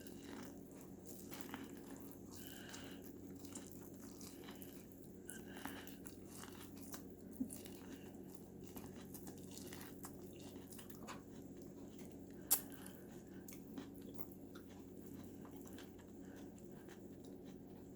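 A person chewing and biting food, with soft crunching and small clicks, and two sharper cracks about seven and a half and twelve and a half seconds in.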